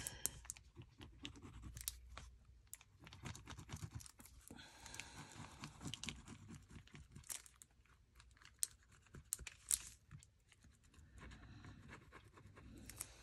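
Faint rustling and scratching of paper being handled, with scattered small clicks and taps, a few sharper ones in the second half.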